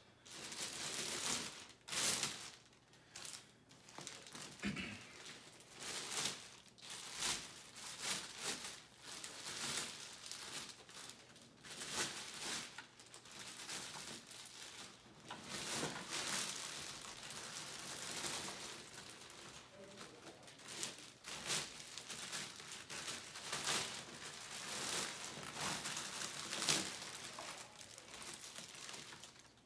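Plastic packaging crinkling and rustling in irregular bursts as chair parts are unwrapped by hand.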